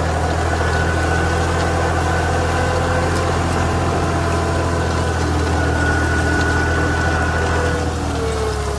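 Compact tractor engine running steadily under load while pulling a disc harrow through tall grass. Its deep, steady hum has a fainter whine above it that wavers a little in pitch.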